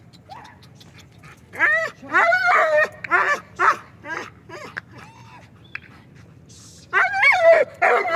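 A young Lapa Gultair (Pakistani gull terrier) dog whining and yelping in high, wavering calls. The calls come in two bouts, one from about a second and a half in, the other near the end.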